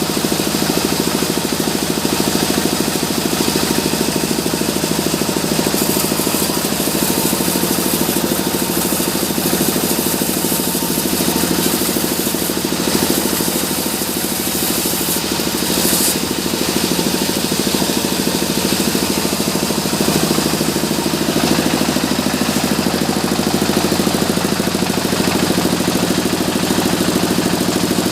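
Sawmill band-saw machinery running steadily with a constant engine-like drone. A brighter hiss comes in for about ten seconds in the middle.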